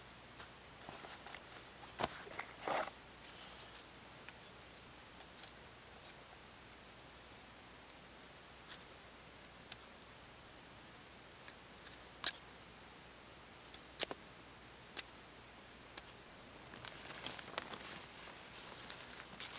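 Knife blade whittling a small stick, a scattering of short, sharp snicks at irregular intervals as shavings are cut off, with soft rustling in between.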